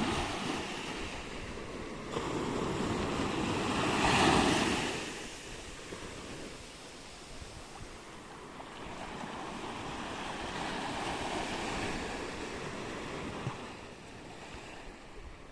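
Baltic Sea waves breaking and washing up the shore: one loud surge about four seconds in, then a longer, softer wash later on.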